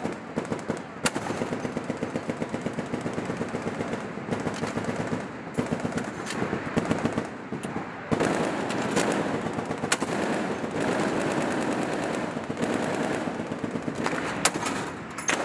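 Deck-mounted machine gun firing long, rapid bursts with short breaks between them, a few single cracks standing out louder than the rest.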